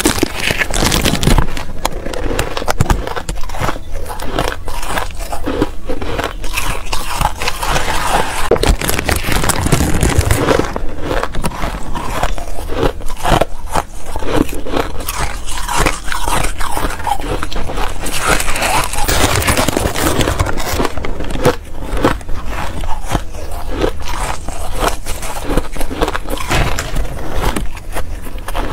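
Close-miked crunching and chewing of mouthfuls of frosty white ice, mixed with a plastic rice paddle scraping and scooping through a bowl of it.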